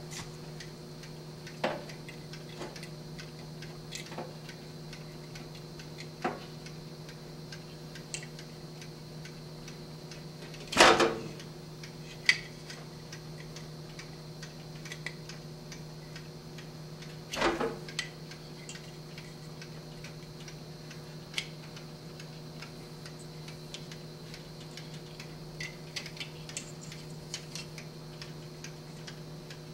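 Mechanical timer of a Schumacher SE-2158 battery charger ticking steadily over a low hum. Small clicks and two louder knocks, about 11 and 17 seconds in, come from wires and terminals being handled.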